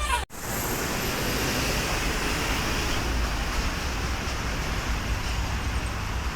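Steady rushing noise of road traffic with a low rumble, heavy vehicles passing and wind on the microphone. A bus's multi-tone horn chord stops just at the start, followed by a brief dropout.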